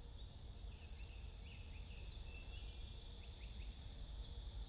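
Quiet outdoor countryside ambience: a steady soft hiss with faint, scattered short chirps from small creatures.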